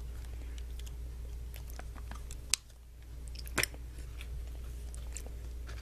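Small clicks and crackles from handling an opened Yan Yan snack cup, with its plastic tray and peeled foil lid, including two sharper clicks about a second apart midway, over a low steady hum.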